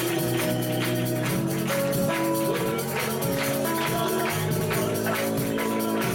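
Worship band music with no singing: sustained chords and a bass line under a fast, steady percussion beat.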